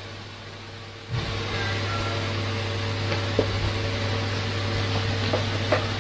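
A steady low mechanical hum with even hiss, like a small motor or appliance running, gets louder about a second in. A few faint light ticks sound over it later.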